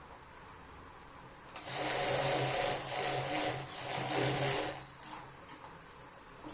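Industrial sewing machine stitching a fabric pocket: it starts about one and a half seconds in, runs for about three seconds with two brief slowdowns, then stops.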